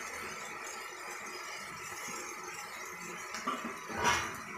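Low steady hiss of onion, tomato and herbs cooking in a steel kadai, then a brief louder scrape near the end as a spoon stirs them in the pan.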